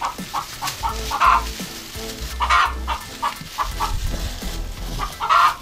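Chickens clucking in a quick, even run of short clucks, about five a second, with three louder calls standing out.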